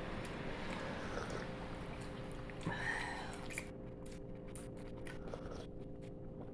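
Close-up chewing of a soft steamed bun with vegetable filling, with small wet mouth clicks. A faint steady hum runs underneath.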